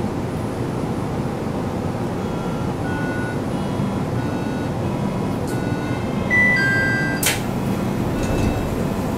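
Airport people-mover car standing with its doors open: a steady hum from the car, a door-warning chime of short electronic beeps, then the doors sliding shut with a knock about seven seconds in.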